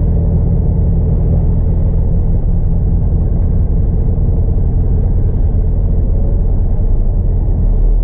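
Scania R450's 13-litre straight-six diesel running at low revs as the lorry rolls slowly, heard from inside the cab as a steady low drone.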